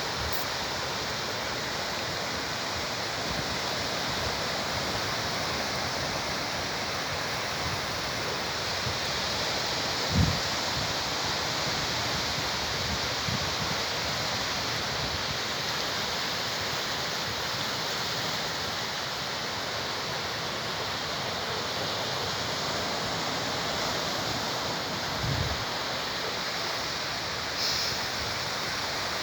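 Sea surf washing on the shore as a steady, even hiss, with a dull thump about ten seconds in and a softer one later.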